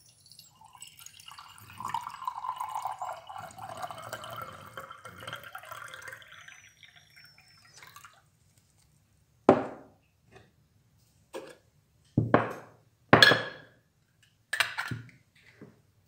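Water poured into the metal base of a stovetop moka pot, a trickling pour lasting several seconds that tails off. About five sharp knocks and clinks follow in the second half.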